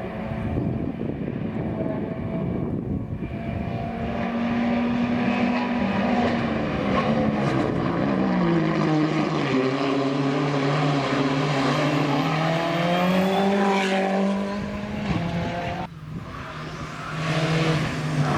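Hillclimb race car engine running hard at high revs, its pitch gliding down and then holding steady, with a brief drop in level about sixteen seconds in before it rises again.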